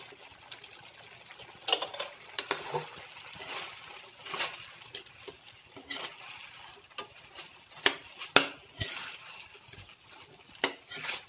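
Metal spatula scraping and knocking against an aluminium wok as fried chicken pieces are stirred and tossed in a thick sauce, in irregular strokes about once a second.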